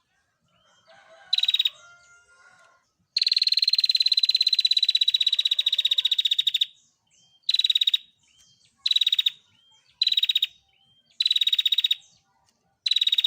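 Female prenjak (prinia) giving its rapid buzzy trill call, the 'ngetir' trill. One long trill runs for about three and a half seconds, followed by a series of short trills at regular intervals, with soft chirps between them.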